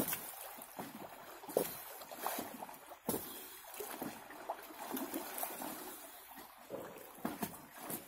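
Water splashing and sloshing in an above-ground frame pool as a person swims through it, with irregular splashes from the strokes.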